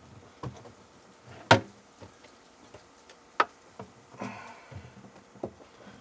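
A few sharp knocks and clicks of tools and metal parts being handled, the loudest about a second and a half in and another about two seconds later, with a short rustle between.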